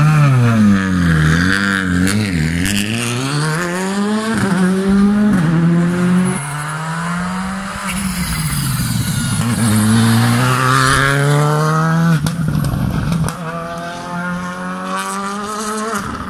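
Skoda Fabia R5 rally car's turbocharged 1.6-litre four-cylinder engine being driven hard. The revs rise and fall sharply through the corners, with quick stepped drops in pitch as it shifts up several times about four to six seconds in.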